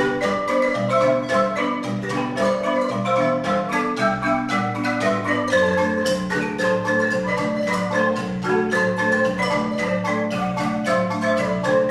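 Large wooden marimba played by several players at once with mallets: a lively tune of quick struck notes over a repeating low bass pattern.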